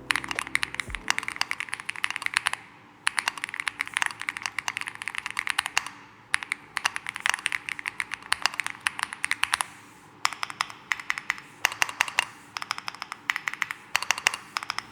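Typing on a mechanical keyboard: quick, uneven runs of key clacks, broken by short pauses about 3, 6 and 10 seconds in.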